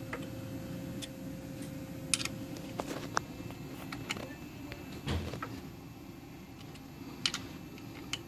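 Scattered light clicks and taps of a hand tool and metal parts as the clamp-height adjustment on a JACK JK-T1900-series tacker is tightened back up, with a duller knock about five seconds in.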